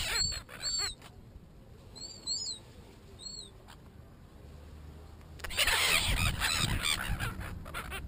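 Red-billed gulls squawking close by, with overlapping calls in the first second and a louder burst of squabbling calls from about five and a half seconds in. The middle stretch is quieter, with a few thin, high chirps and scattered sharp taps.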